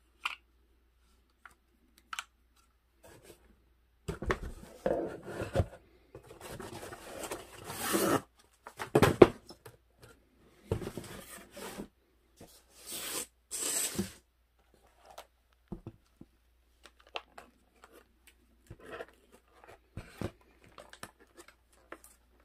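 Cardboard packaging being torn and handled, in bursts of ripping and crunching for about ten seconds. After that come lighter, scattered crinkles and clicks as a plastic blister pack is handled.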